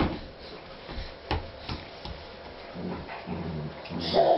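Shetland sheepdog making short, low vocal sounds while playing with a baby, with a couple of light knocks. A baby's voice starts near the end.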